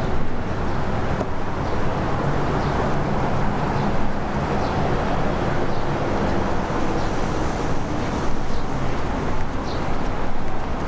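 Steady rumble and rushing noise of vehicle engines, with a low hum and now and then a faint, short, high chirp.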